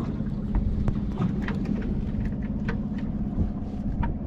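Honda outboard engine running steadily with a low hum, with irregular light clicks and taps over it.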